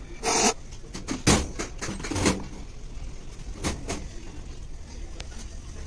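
A handful of sharp knocks and clatters, as of tools and engine parts being handled, loudest about one and two seconds in, then lighter ticks.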